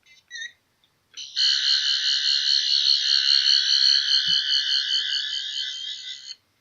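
Tenth Doctor 'Day of the Doctor' sonic screwdriver toy playing its electronic sonic sound effect: a couple of short chirps at the start, then a long warbling buzz from about a second in that stops shortly before the end.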